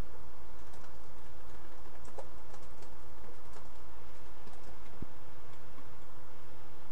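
Scattered faint ticks and small clicks of tweezers and a soldering iron working on a circuit board, with one sharper tap about five seconds in, over a steady low hum.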